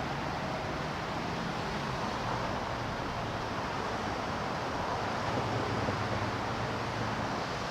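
Steady traffic noise from a city street: an even wash of passing vehicles with a low engine hum.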